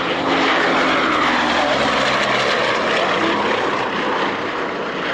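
Bristol Blenheim bomber's two Bristol Mercury radial engines running loud and steady in a low flypast. The engine note sags slightly in pitch as it passes and eases off a little near the end.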